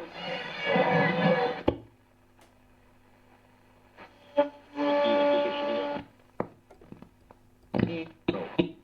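Graetz Comedia 616 tube radio being tuned across a band through its loudspeaker. There are two short snatches of station sound with music, the second holding steady tones. Between them are quiet gaps with a low hum and sharp clicks of static as the dial passes between stations.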